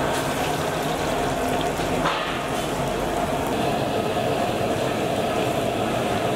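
Vadas deep-frying in a large iron kadai of hot oil: a steady sizzle.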